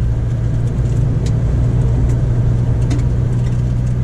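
Vehicle cabin noise while driving through a rain puddle on a dirt road: a steady engine and tyre drone, with a few brief sharp ticks.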